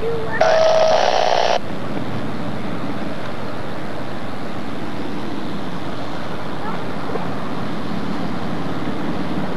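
A single horn blast of about a second with a steady pitch, about half a second in, over a steady low rumble of boat engines and wind on the microphone, as a harbour tug works a lake freighter.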